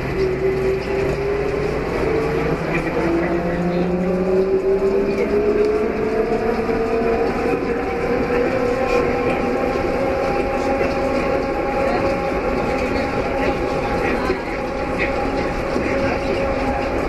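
Elevated electric train running, heard from inside the car: a motor whine climbs in pitch over the first five or six seconds as the train picks up speed, then holds steady over a constant rolling noise.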